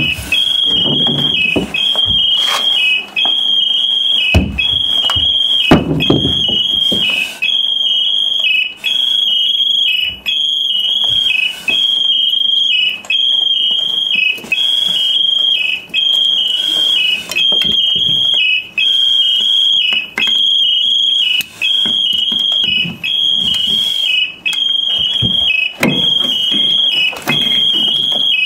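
High-pitched electronic alarm sounding in an even repeating pattern, about one cycle every one and a half seconds, each cycle dipping briefly lower in pitch before a short gap. Occasional knocks and gear rustling sound beneath it, the sharpest knock about six seconds in.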